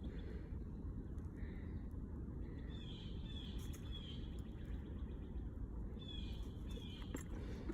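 Wild birds calling in woodland: short falling chirps, a few in a row, in two runs, over a steady low rumble, with a faint click near the end.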